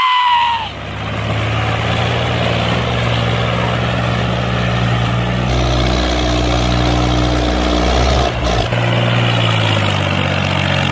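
Steady engine-like drone with a low hum, as of a small vehicle running, starting just after a short falling pitched call at the very start.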